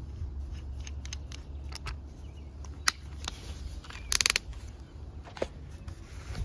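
Keyless chuck of a cordless drill clicking as it is tightened by hand onto a tube-swaging bit: a few separate clicks, then a quick burst of ratcheting clicks about four seconds in, the loudest sound. A low steady rumble runs underneath.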